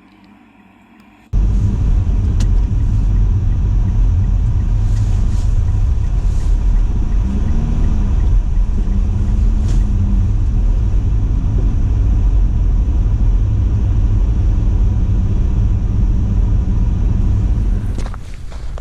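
Steady low rumble of a car driving along a road, starting suddenly about a second in and dropping away near the end.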